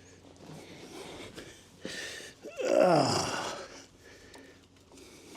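A man's loud, breathy groan of effort, falling steeply in pitch about two and a half seconds in, while he strains at a stubborn motorcycle oil drain plug. Faint tool clicks come before it.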